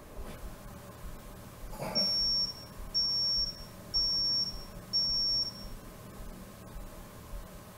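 Four high-pitched electronic beeps, about one a second, beginning about two seconds in.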